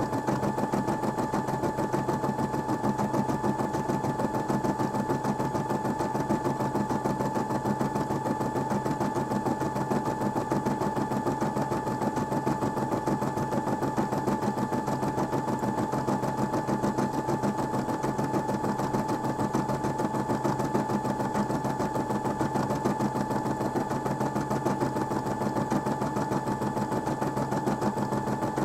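Brother M280D embroidery machine stitching out a design: a rapid, even run of needle strokes and a steady mechanical hum as the embroidery unit moves the hoop under the needle.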